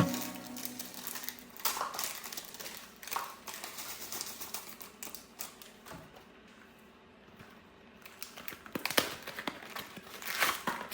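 Scattered light clicks, taps and rustling, like small objects being handled in a small room, quietest midway and busier near the end.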